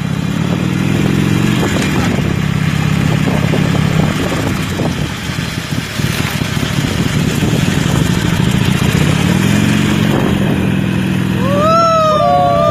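Motorcycle engine running as the bike rides along, its note rising as it speeds up about a second in and again around nine seconds in, with wind rushing over the microphone. Near the end a wavering, voice-like call rises and falls over it.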